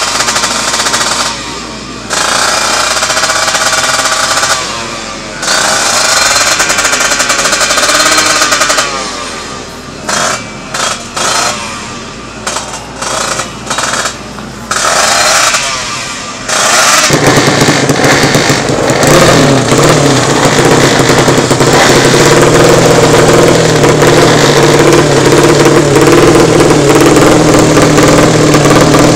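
Drag-racing motorcycle engines with open racing exhausts being revved hard in short repeated bursts, cutting in and out rapidly. A little past halfway, one engine settles into a steady, high idle.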